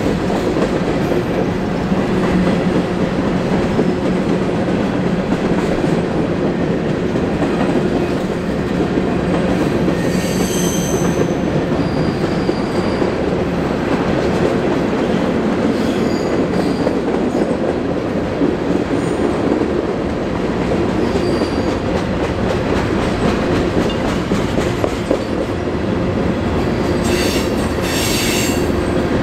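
Freight train of covered hoppers and tank cars rolling past on a curve: a steady rumble of wheels on rail, with brief high wheel squeals about ten seconds in and again near the end.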